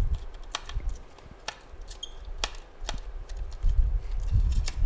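Scattered light clicks and taps of a small screwdriver working on a circuit board inside a plastic housing, with low bumps from the housing being handled.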